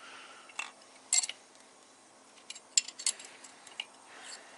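Light metallic clinks and taps of hand tools and connecting-rod parts being worked loose inside an upturned VR6 short block: a handful of short, sharp clicks at uneven intervals, the loudest a quick pair about a second in.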